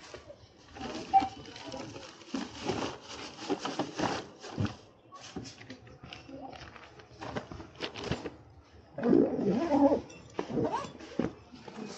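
Plastic carrier bags rustling, with knocks and bumps of handling as shopping is packed into an insulated delivery bag.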